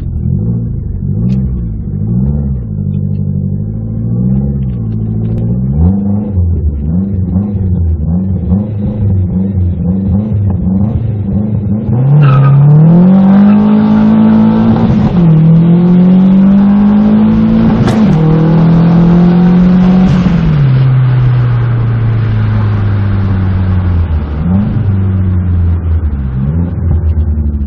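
Fiat Coupe 16v Turbo's tuned 2.0-litre turbocharged four-cylinder, with open air intake and full 3-inch stainless exhaust, heard from inside the cabin. It is revved in short blips, then about twelve seconds in it pulls hard under full acceleration, its pitch rising, dropping at two gear changes and rising again. After that the revs fall away as it lifts off.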